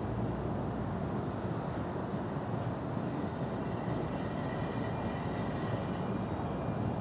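Steady low rumble and hiss of railway-station ambience, with a faint high whine coming up about four seconds in and fading near six seconds.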